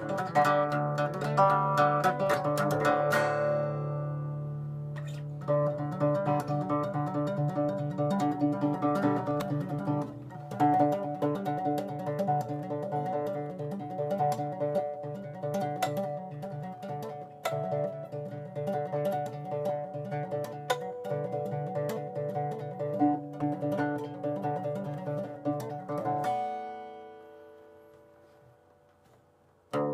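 Dean cutaway acoustic guitar picked as an instrumental. A chord rings out and fades a few seconds in, picking picks up again about five seconds in and runs on, then a final chord is left to ring and dies away near the end.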